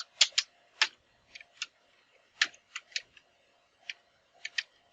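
Computer keyboard keys clicking in an irregular run of separate keystrokes as a command is typed, with short pauses between.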